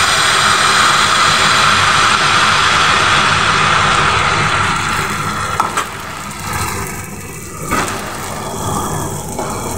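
Wheat-flour batter sizzling as it spreads on a hot, oiled frying pan, a steady loud hiss over a low roar. The sizzle eases about six seconds in.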